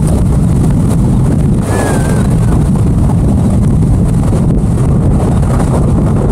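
Towboat running at speed across open water: steady engine drone and water rush under heavy wind buffeting on the microphone.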